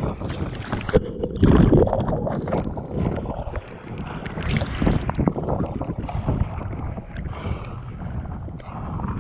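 Heavy wind buffeting the microphone, mixed with waves splashing against a kayak, in irregular gusts and surges; the loudest surge comes about one and a half seconds in.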